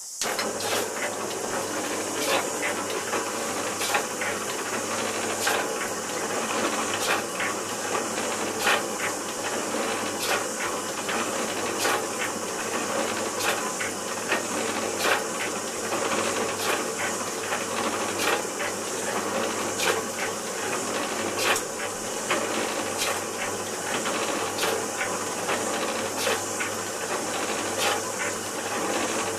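1945 MacEwans LBG100 bore pump, an electric-motor, belt-driven piston pump, starting up and running: a steady hum and hiss with a regular knock from the pump's stroke, about every second and a half.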